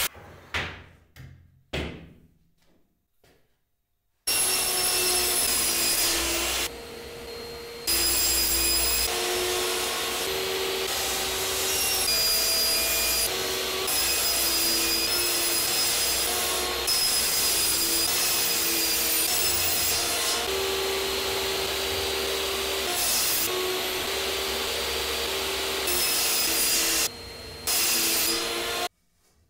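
Table saw running and cutting through a thin plywood sheet: a loud, steady whir whose pitch wavers as the blade is loaded. It starts about four seconds in after a few light knocks, drops briefly twice, once about a quarter of the way in and once near the end, and stops just before the end.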